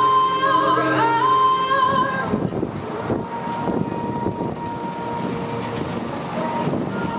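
A song with singing runs for about the first two seconds and then stops. After it comes an even, rumbling outdoor noise with a thin steady high tone running through it.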